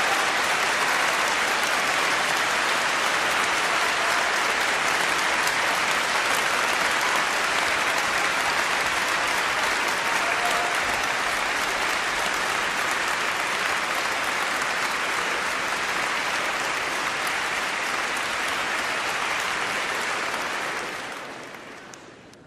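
A large concert-hall audience applauding steadily, dying away near the end.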